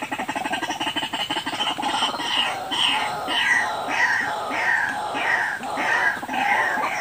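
White-breasted waterhen (ruak-ruak) calling. It begins as a rapid stuttering chatter, then from about two seconds in becomes a run of repeated downward-sliding notes, about one and a half a second. This is the kind of call used as a lure for the species.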